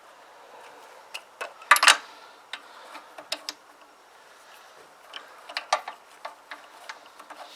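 Irregular metallic clicks and knocks of hand tools and parts being handled on a small petrol engine, with the loudest clatter about two seconds in.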